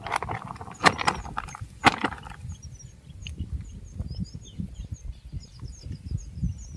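Gusty wind rumbling on the microphone, with small birds chirping high and quick through the second half. For the first couple of seconds there is rustling noise with two sharp knocks.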